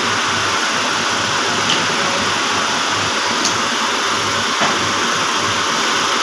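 A machine running steadily, with a constant low hum under a broad noise and a few faint clicks.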